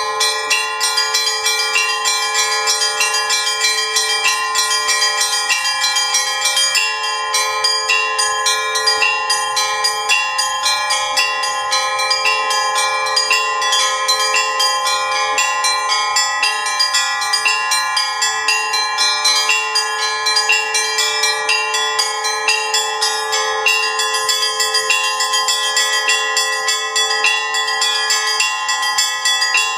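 Russian Orthodox church bells rung in the zvon style: small high bells are struck in a fast, steady rhythm over the sustained ringing of several mid-sized bells. The ringing is loud and continuous, with no large bass bell heard.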